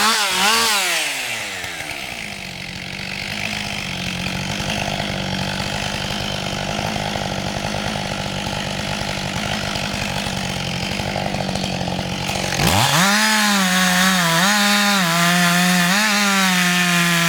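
Husqvarna 560 XP two-stroke chainsaw: the engine's pitch drops as it goes into the cut, then it runs under load through the wood for about ten seconds. Near the end it jumps suddenly to a high, wavering free-running rev.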